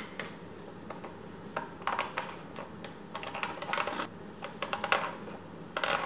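Light clicks and clattering of packaged items being handled and set down, in several short clusters.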